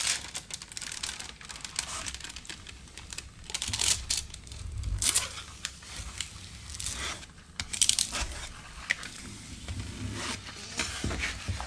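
Clear plastic cover film on a diamond painting canvas crinkling and rustling under a plastic triangle tool and hands in a series of uneven smoothing strokes, pressing the wrinkles out so the canvas lies flat.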